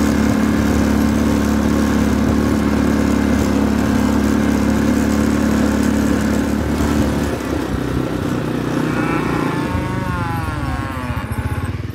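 Quad bike engine running steadily as it drives across a field, then easing off and slowing about seven seconds in.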